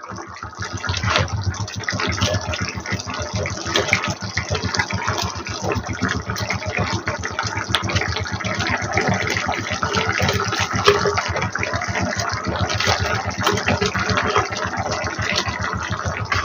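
Curry gravy boiling hard in a kadhai over a full gas flame: a steady, dense bubbling and crackling as fried fish pieces are put into it.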